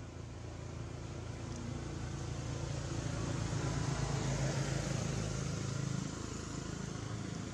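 A motor vehicle's engine hum passing by, swelling over a few seconds to a peak and easing off near the end.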